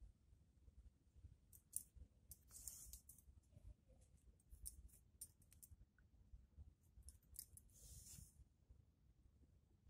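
Faint scratchy rustles and clicks of hand embroidery on jute sacking: woollen yarn drawn through the coarse burlap weave as the cloth is handled, with two longer hissing pulls about two and a half and eight seconds in.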